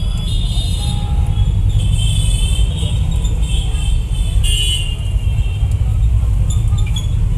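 Steady low rumble of street traffic, with several short high-pitched horn toots at intervals.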